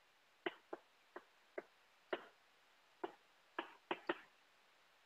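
Chalk tapping against a chalkboard as a sentence is written by hand: about nine faint, short, sharp taps at an uneven pace.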